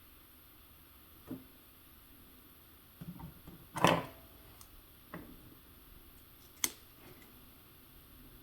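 Scattered clicks and knocks of RC crawler track links and small parts being handled while the links are joined: one knock about a second in, a loud cluster about four seconds in, and a sharp click near the end.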